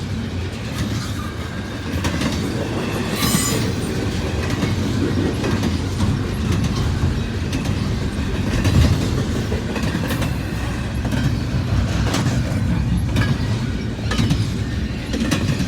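Intermodal freight train rolling past at track side: a steady rumble with wheels clicking repeatedly over rail joints, and a sharp metallic clank about three seconds in.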